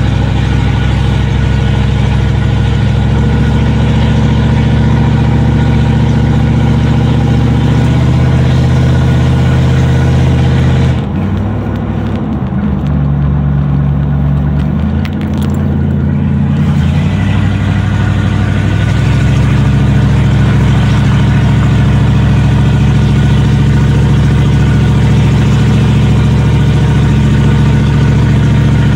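1984 7.4 L 454 big-block V8 running loud through an open exhaust, cut before the catalytic converter with no mufflers, as it pulls a pickup truck down the road, heard from inside the cab. About eleven seconds in the engine note drops and wavers for several seconds, then settles back to a steady drone.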